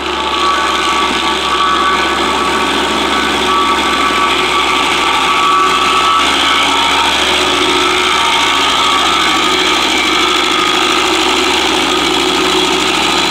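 Tractor-driven Shaver SC50 PTO stump grinder running steadily, its cutting wheel grinding into a stump, over the steady running of the tractor engine.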